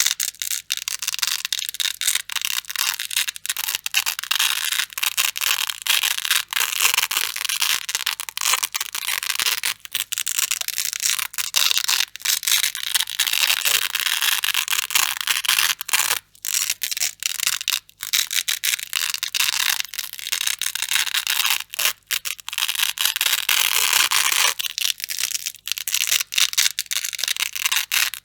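Grey Velcro hook-and-loop strip being peeled apart, a continuous crunchy tearing crackle with a few brief pauses midway.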